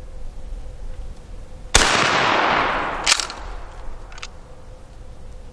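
A single shotgun blast from a Coast to Coast Master-Mag CC660, a house-brand Mossberg 500 pump gun, firing a slug. It comes nearly two seconds in and its echo dies away over about a second. A shorter, sharp clack follows just after.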